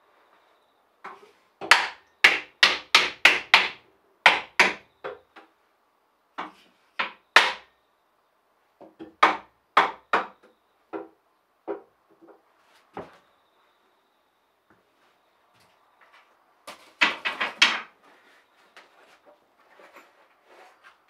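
Hammer blows on wood: runs of sharp knocks, about three or four a second, broken by short pauses, with a dense flurry of blows near the end.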